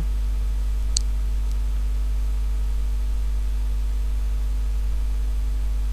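Steady low electrical mains hum with a hiss, and one faint short tick about a second in.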